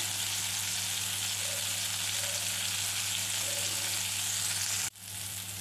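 Marinated seer fish (anjal) steaks shallow-frying in oil in a pan, a steady sizzle. It cuts out for an instant about five seconds in, then carries on a little quieter.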